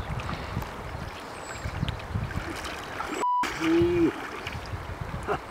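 River current flowing and burbling around a wading angler, with low gusts of wind on the microphone. About three seconds in there is a brief beep, then a short steady hum lasting about half a second.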